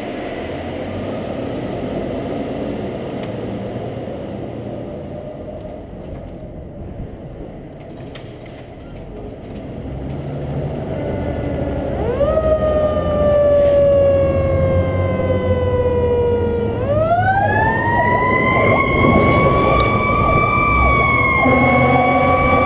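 Pierce fire truck's diesel engine running as the truck pulls out, then about halfway through its siren starts: a quick rise followed by a slow falling wail, then a second climb to a higher pitch that is held. A lower steady tone joins near the end.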